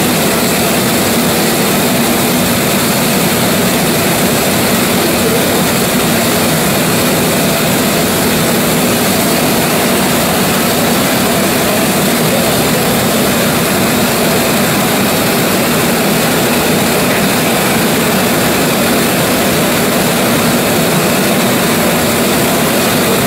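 Pressurised paraffin blowlamps burning with a steady, loud rushing noise as they heat the cylinder heads of a Gardner hot-bulb oil engine before it is started.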